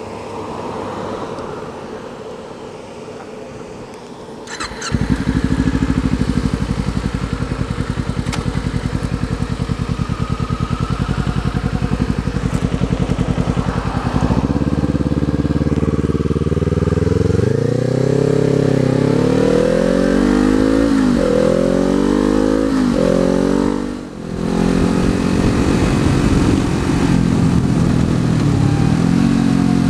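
2019 Kawasaki Z400's parallel-twin engine with an Akrapovič exhaust, quiet at first, then pulling away about five seconds in and running up through the gears: the pitch climbs and drops back at each upshift, with a brief lull at one shift, before settling into a steady cruise.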